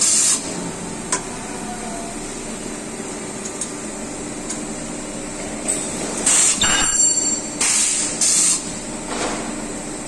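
Ultrasonic plastic welding machine joining sections of a plastic blower wheel: short, loud hissing bursts as it fires, one right at the start and three more close together a little after the middle, over a steady machine hum.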